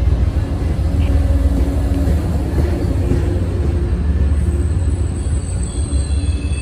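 MBTA commuter rail train of bi-level coaches rolling along a station platform, a steady low rumble of wheels and the diesel locomotive.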